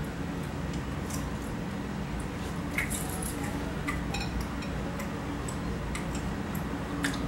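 A fork clinking and scraping against a plate in scattered light taps, with quiet chewing, over a steady low hum.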